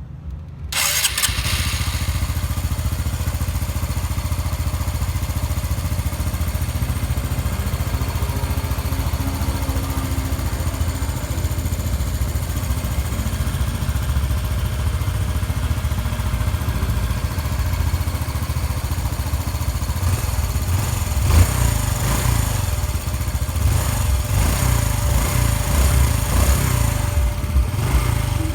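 Honda Biz 125's freshly rebuilt single-cylinder four-stroke engine starting up less than a second in and then running steadily, with a few stronger throttle blips in the last third. It runs quietly and evenly, without the knocking noise it made before the rebuild.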